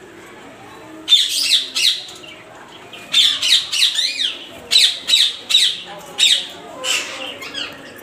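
Caged ring-necked parakeets squawking: a run of about a dozen short, harsh screeches in quick succession, starting about a second in.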